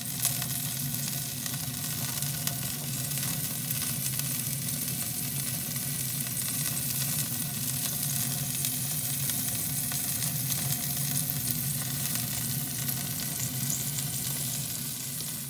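Lamb shish kebabs sizzling under a hot oven grill, a dense fine crackle, with a steady low hum underneath.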